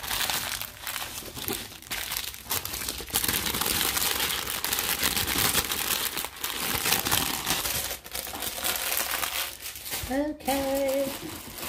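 Clear plastic bags of diamond-painting drills crinkling and rustling as they are handled, in uneven bursts, with a short hummed vocal sound about ten seconds in.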